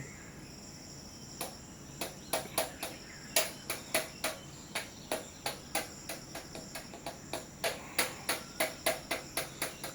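A bird's short, sharp chirps repeated about two to three times a second, starting about a second and a half in, over a steady high trill of crickets.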